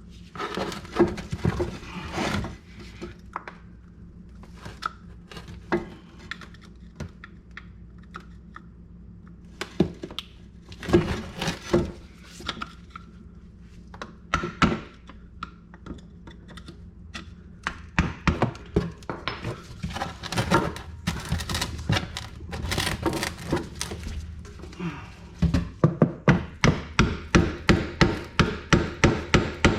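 Metal knocking and tapping on a front brake caliper as a stuck outer brake pad is forced loose; glue on the pad's backing plate is what holds it. Near the end comes a quick run of hammer blows, about three a second.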